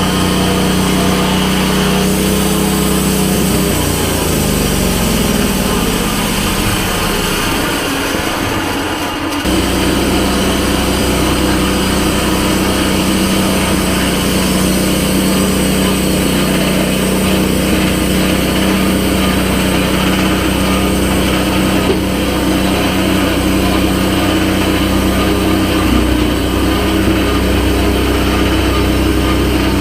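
An engine running steadily. A few seconds in its pitch falls, and near ten seconds the sound changes abruptly to another steady engine run.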